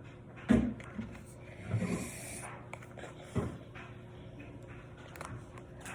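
Toy box packaging being handled and pried at to free a stuck key: a few light knocks and a brief rustle.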